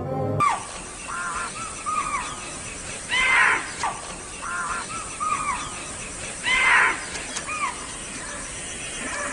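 Wild birds calling outdoors: many short, repeated arched calls, and twice a louder, harsher call, over a steady background hiss.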